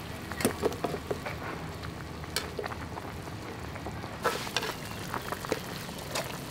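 A wok of water boiling with pork offal makes a steady hiss, broken by several sharp clinks of steel tongs against a steel colander as the boiled pig intestines and pig head are lifted out.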